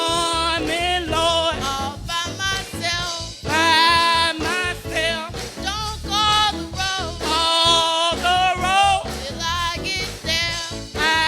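Gospel singing with band accompaniment: a voice sings long notes with vibrato over the instruments.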